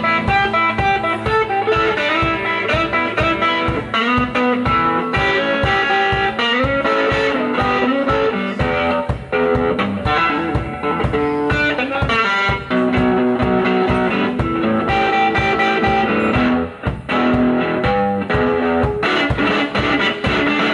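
Electric guitar playing an instrumental blues break with bent notes, over a steady bass-drum beat.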